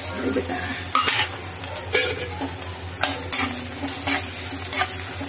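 Chopped makhana (fox nuts) and other dry fruits sizzling as they fry in desi ghee in a metal kadhai. A metal ladle scrapes and clinks against the pan as they are stirred, about once a second.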